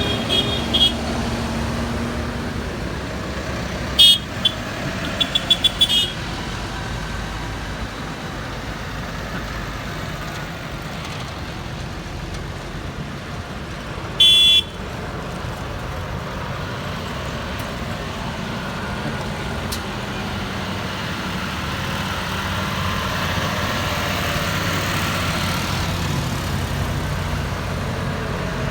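Tractor engines running as a procession goes by, with horns tooting. One short toot comes about four seconds in, followed by a quick run of short toots, and a longer toot comes about halfway through; the engine noise grows louder in the later part as a tractor draws near.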